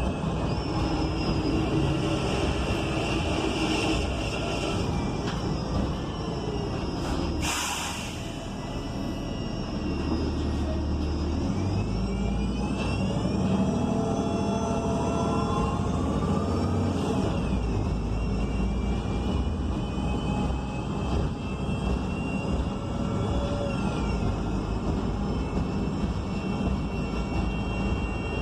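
Inside an ENC Axess transit bus with a Cummins Westport L9N natural-gas engine and a Voith D864.6 automatic transmission. A short hiss of air comes about seven seconds in. Then the engine and transmission whine climbs and drops in steps as the bus accelerates through its gears, and falls again near the end.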